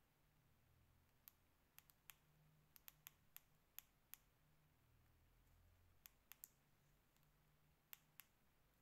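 Pet fancy mouse nibbling seed mix: about fifteen faint, sharp clicks at irregular intervals, some in quick pairs, as seeds are bitten.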